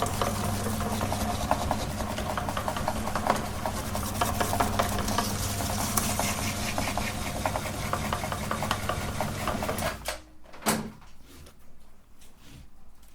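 Electric meat grinder motor running with a steady hum and a dense crackle of small clicks as it grinds ice cream. It switches off suddenly about ten seconds in, followed by a single knock.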